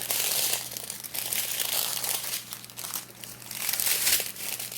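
Small plastic bags of diamond-painting drills crinkling in bursts as they are handled and sorted through.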